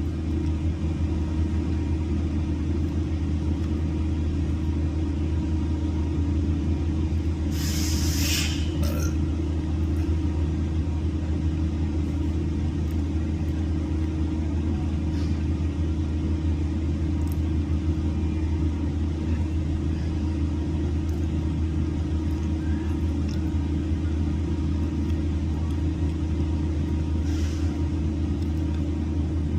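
Engine running steadily at a constant speed, a low even rumble, with a brief hiss about eight seconds in.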